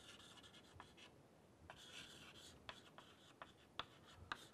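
Chalk writing on a blackboard, faint: a scattering of light taps with a couple of longer scratching strokes as words are written out.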